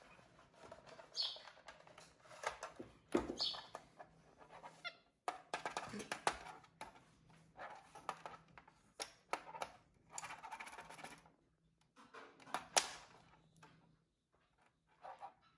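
Plastic stylus tapping and scratching on a toy magnetic drawing board (a Magna Doodle-style sketch pad) as a capuchin monkey draws on it, a string of irregular clicks and short scrapes. A few short high squeaks come in the first few seconds.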